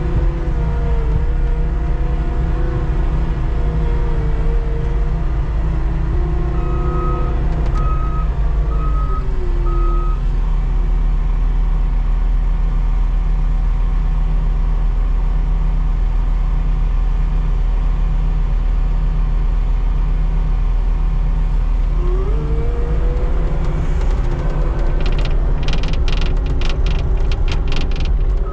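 Skid steer running steadily under load, its engine and hydraulics whining and shifting in pitch as it works. A backup alarm beeps four times about a third of the way in, and near the end a quick run of clicks and scrapes comes as the bucket scrapes the pavement.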